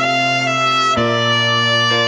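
Slow background music of long held notes over a steady low bass, moving to a new chord about a second in.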